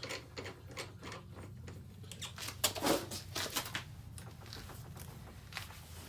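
Scattered light clicks and knocks of hands working at the water plumbing, likely while shutting the water off, with a louder knock about three seconds in, over a low steady hum.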